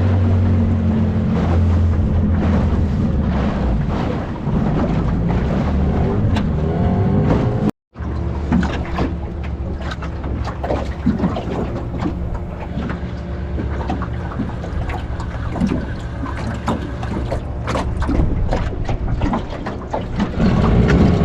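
Small boat's outboard motor running steadily under way, with water and hull noise and scattered knocks. The sound drops out for a moment about eight seconds in, then the motor runs on at a slightly different pitch.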